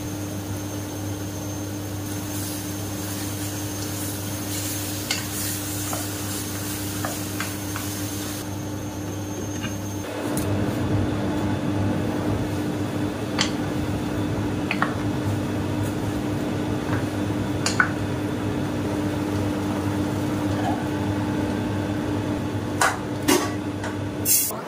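Clinks of a glass lid and utensils against an enamel-coated cooking pot, a few sharp knocks spread through, over a steady mechanical hum. From about ten seconds in, a rougher rumble from the pot cooking on the stove joins and stays.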